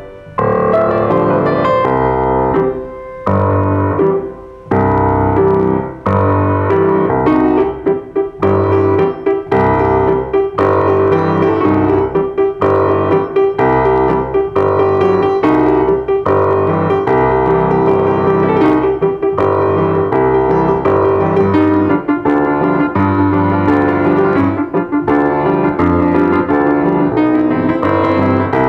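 A grand piano played solo, with a few brief breaks in the first few seconds before the playing runs on without pause.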